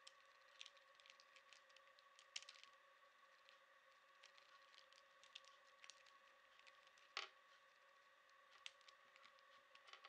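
Faint, irregular clicking of a small plastic Rubik's cube's layers being turned by hand, with a couple of louder clacks, over a faint steady whine.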